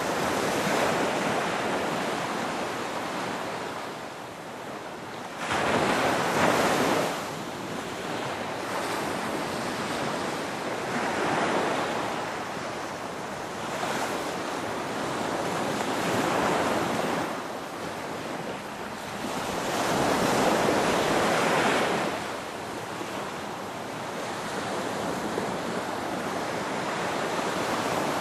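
Ocean surf: waves breaking and washing in, a swell of rushing noise about every five seconds, the loudest rising sharply about five seconds in.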